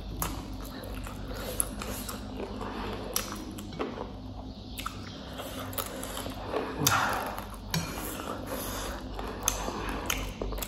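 A person chewing a mouthful of noodles and fried chicken, with a few short clicks and scrapes of chopsticks against a china plate.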